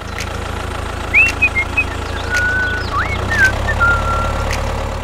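A tractor engine running steadily with a low, even chug. A few short whistled chirps sound over it in the middle.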